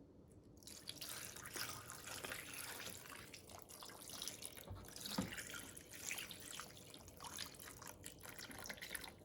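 Vinegar being poured into a container of small metal sockets and bits, splashing and trickling steadily with many small drips. It starts a little under a second in.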